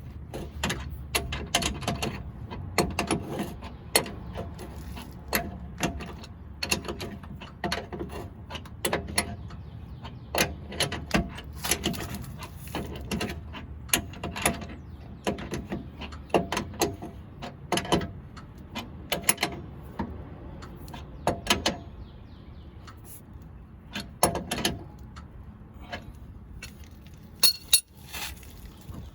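Hand ratchet wrench clicking in quick irregular runs with short pauses as the rear lower control arm bolts are tightened.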